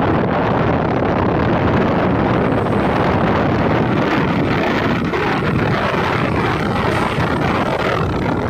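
Steady rush of wind on the microphone of a moving vehicle, mixed with its running and road noise.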